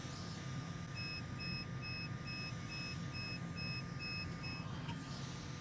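A run of about nine short, high electronic beeps, roughly two a second, starts about a second in and stops near the end. Underneath is the steady airflow hiss and faint whine of a hot air rework station running on low air speed.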